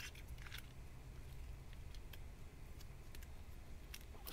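Faint scattered clicks and taps of a spice container being opened and handled, over a low steady rumble.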